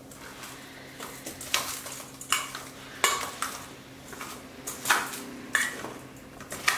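Metal spoon stirring and scraping through whole star gooseberries coated in spice powders in a stainless steel bowl. There are irregular clinks of spoon on steel, about half a dozen spread through, with softer scraping between.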